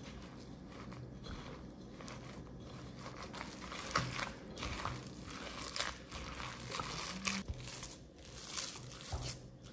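Bare hand kneading a moist mix of grated zucchini, ricotta, egg, parmesan and breadcrumbs in a glass bowl: soft, irregular squishing and crumbly rustling, busier and a little louder from about four seconds in.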